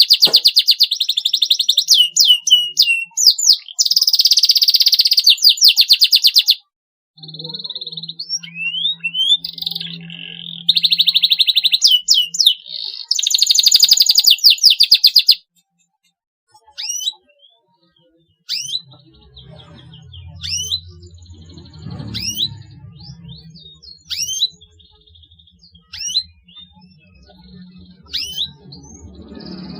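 Domestic canary calls: loud, fast trills for the first half, then after a short pause single rising 'cuit' chirps, about one a second, used as a prompt to get a young canary singing.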